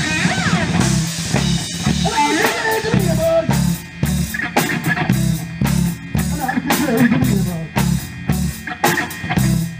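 A rock band playing live in an instrumental passage: electric guitar bending notes over bass and a drum kit keeping a steady beat.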